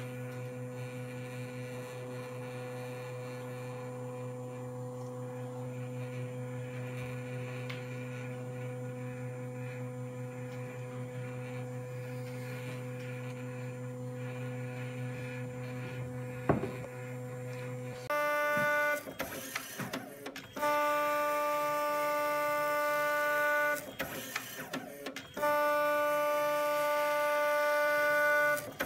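Zebra P640i card printer: a steady low electrical hum with a single click, then the printer's motors running in several stretches of about one to three seconds each, a steady whine that stops and starts.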